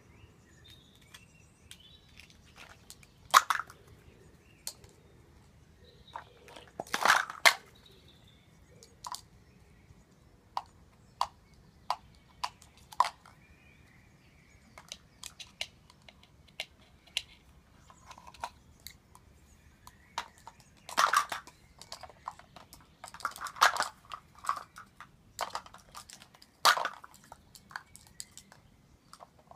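Plastic stacking cups clattering as a cockatoo knocks down towers of them and scatters them across the ground: light scattered taps and knocks, with several louder clatters where whole stacks topple.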